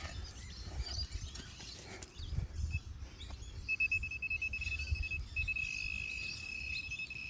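A serrated hand digging trowel scraping and chopping into soft soil. About halfway through, a pinpointer probe in the hole starts beeping rapidly, then settles into a steady high tone, signalling a coin target close by.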